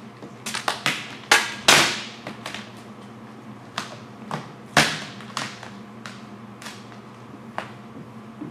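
Vinyl wrap film being lifted and handled on a car hood: irregular crackles and snaps of the film, a cluster of loud ones in the first two seconds and another about five seconds in, with softer ones between.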